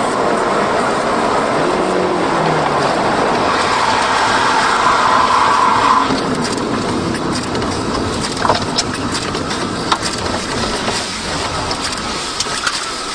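Steady road and engine noise of a car driving, growing louder up to about six seconds in and then easing off, with a few sharp knocks later.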